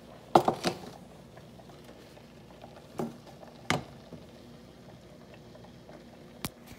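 Hot frying grease quietly bubbling in a pan, heated up to temperature for frying. A few sharp clicks and knocks of handling break in, a loud cluster just after the start and single ones later.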